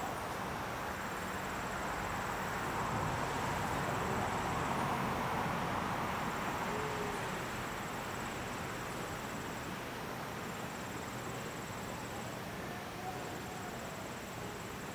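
Steady rush of flowing creek water, with a high, thin insect trill that sounds in stretches of a few seconds over it.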